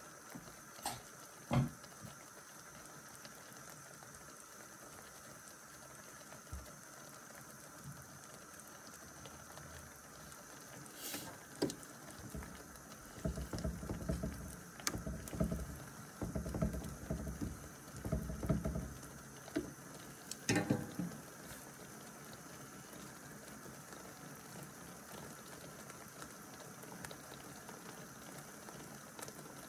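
Dye bath of wool fibre and citric acid simmering in a stainless steel roasting tray on a gas hob, a steady low bubbling hiss. From about 13 to 19 seconds in, tongs prod the wet fibre in the liquid, making irregular sloshing and squelching, and a few sharp clicks of metal on the tray.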